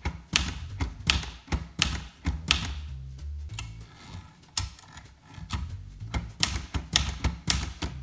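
1972 Olivetti Lettera 31 manual portable typewriter being typed on: a quick, irregular run of sharp keystroke clacks as the typebars strike the platen, with a brief lull about halfway through.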